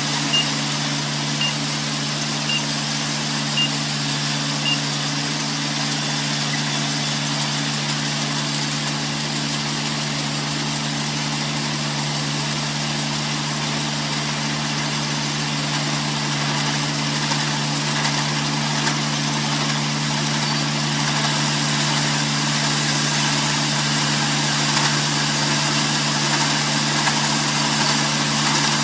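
Farm machine's engine running steadily at a constant speed, with five short high beeps about a second apart in the first five seconds.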